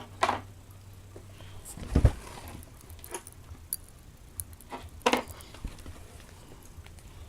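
Eating the popping-candy cream filling of an Oreo: scattered small snaps, clicks and mouth smacks. A dull thump comes about two seconds in.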